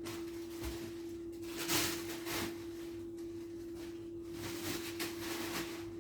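A steady single-pitched hum holds without change throughout, with a few soft, brief rustles of handling, the clearest about two seconds in.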